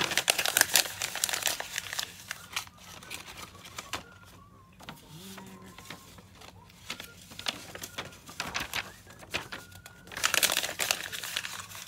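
Printed paper pages being crumpled into balls by hand, crinkling loudly for the first couple of seconds and again about ten seconds in, with softer rustling between.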